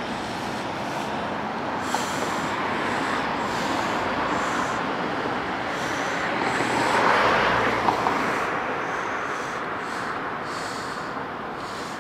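Street traffic with a passing vehicle: a steady rush of road noise swells to a peak about seven seconds in, then fades away.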